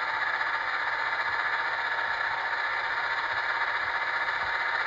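HO-scale Amtrak F40PH model locomotive's DCC sound decoder playing a diesel engine running, through the model's small onboard speaker. The sound is steady, with little bass.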